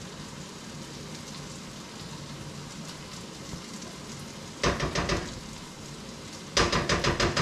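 Browned beef slices sizzling steadily in a skillet over lowered heat, while tomato paste is worked in. A utensil scrapes and clatters against the pan in a short burst about four and a half seconds in and again in a quicker run of strokes near the end.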